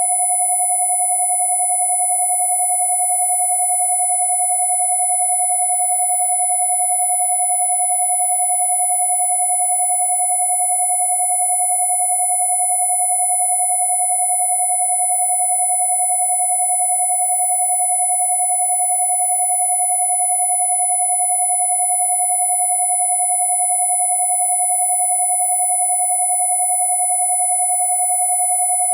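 Two steady electronic sine tones sounding together without a break: a 727 Hz tone and a high 10,000 Hz whistle, with faint overtones of the lower tone. They are Rife-frequency tones.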